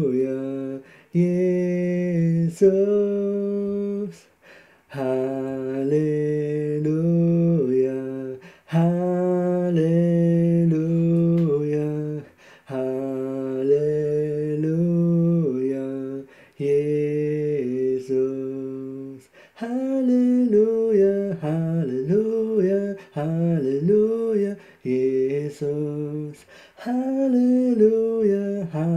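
A man singing a slow worship melody in long, held notes, phrase after phrase with short breaks between them.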